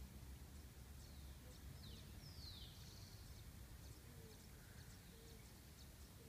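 Quiet outdoor ambience with faint bird calls: a few quick downward-sweeping chirps between about one and three seconds in, scattered light high ticks, over a low rumble.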